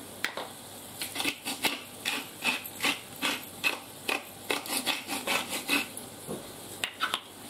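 Hand-twisted pepper mill grinding pepper onto the food in a run of short grinding strokes, about two to three a second.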